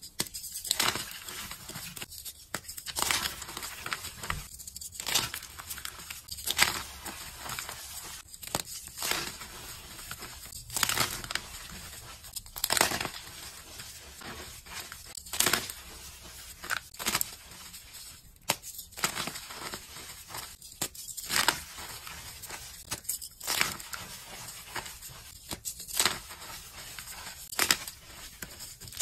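Pink reformed gym chalk blocks crunching and crumbling as fingers crush them and squeeze the loose powder: a string of crisp crunches, one every second or two, with softer crumbling between.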